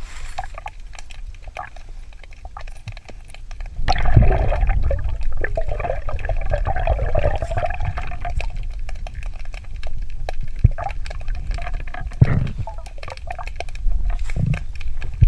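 Underwater sound of a scuba diver's exhaled breath bubbling out of the regulator: a long gurgling burst of bubbles starts about four seconds in and lasts several seconds, and shorter gurgles follow twice near the end, over a low underwater rumble.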